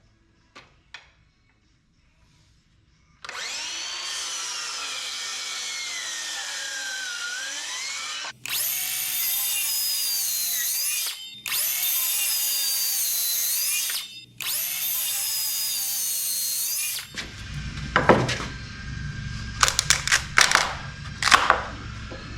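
Circular saw making repeated notch cuts into a wooden 6x6 post: four runs of motor whine with brief stops between them, the pitch sagging and recovering as the blade loads in the wood. After the saw stops, a run of irregular knocks and taps.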